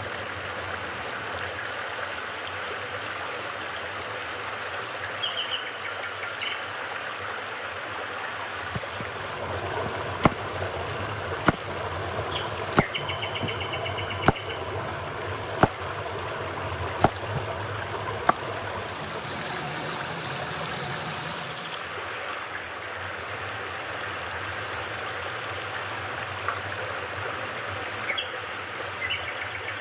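Stream water running steadily, with a series of seven sharp knocks about a second and a half apart in the middle.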